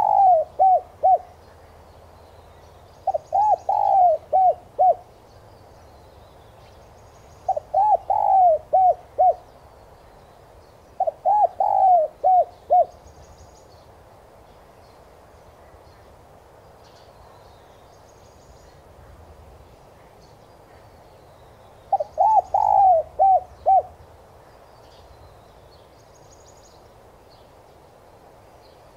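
Spotted dove cooing: phrases of five or six quick, low coos, four full phrases a few seconds apart with one longer gap of about nine seconds, and the end of another phrase at the very start. Faint chirps of small birds run underneath.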